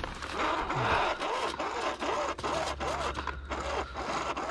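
Rummaging through a pile of discarded household items: a busy run of scraping, rattling and clicking as things are moved and handled, over a steady low hum.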